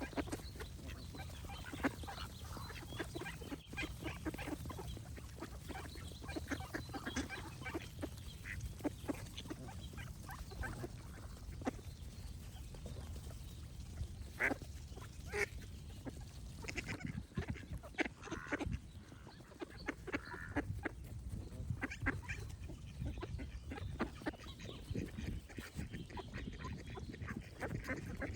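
Ducks quacking, many short calls coming irregularly throughout, over a steady low rumble.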